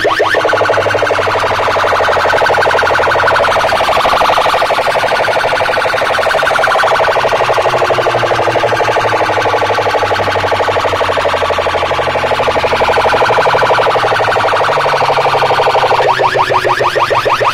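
Loud electronic siren-like effect played through a large DJ sound system: a fast-warbling alarm tone over a steady low hum. Near the end it switches to quick repeated rising chirps.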